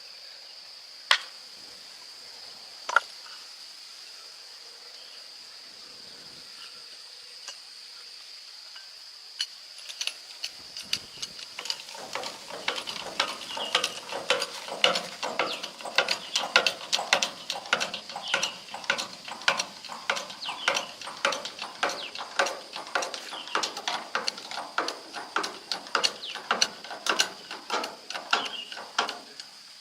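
Rapid, irregular metallic clicking and rattling of hand tools at work on the old Honda tricycle's engine, which begins after two isolated clicks and about ten seconds of quiet. A steady high-pitched insect drone runs underneath.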